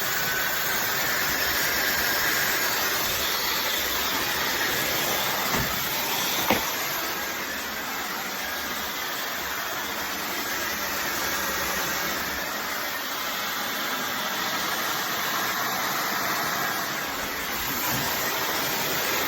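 Small handheld blow dryer running steadily, blowing air through a hose into a soft bonnet dryer cap: an even rush of air, with two brief clicks about six seconds in.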